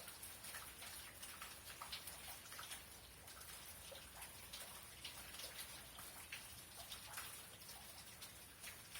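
Faint thunderstorm rain: scattered drops ticking irregularly, several a second, over a soft steady hiss.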